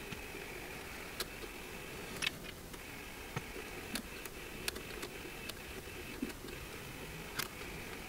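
WEISAN RC210E800 benchtop lathe running slowly, about 200 rpm, with a faint steady hum and a high whine, while a machine tap cuts an M5 thread in a hand-held aluminium block. Scattered light clicks come through about once a second.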